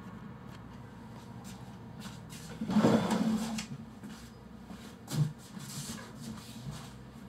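A person moving about a small room: about a second of scraping and rustling as he gets up and steps back, a single thump about five seconds in, then light handling of a wooden door.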